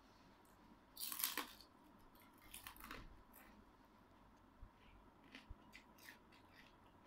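Brittle dried fish being broken apart by hand: a crackling snap about a second in and a shorter crackle near three seconds, followed by faint light ticks.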